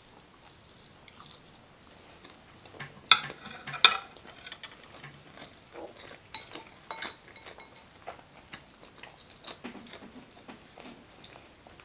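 Close-miked eating sounds: two sharp clinks of dishes or cutlery about three seconds in, the loudest sounds, then soft chewing and small scattered mouth clicks.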